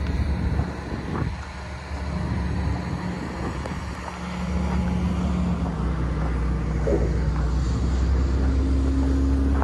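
Long-reach excavator's Cummins diesel engine running with a steady low hum, getting louder about halfway through, and a higher steady tone joining near the end.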